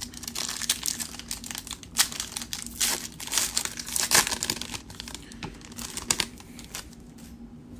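Foil trading-card pack being torn open and its wrapper crinkled and pulled off the cards: a run of dense crackling that dies down about six and a half seconds in.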